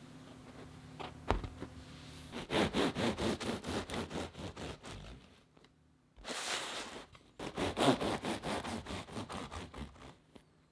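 A serrated bread knife sawing through the crisp crust of a soft cheese baguette: quick back-and-forth strokes with a dry crackle, in two spells of a few seconds each with a short scrape between them.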